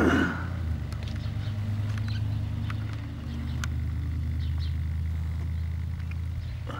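A steady low mechanical hum, with a short falling glide right at the start and scattered light clicks and crackles.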